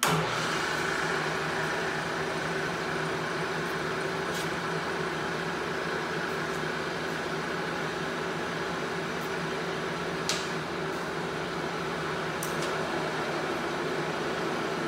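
Bridgeport Series 1 milling machine's spindle motor switched on: it starts suddenly and runs at a steady speed, a hum with a higher whine above it. A few light clicks sound over it.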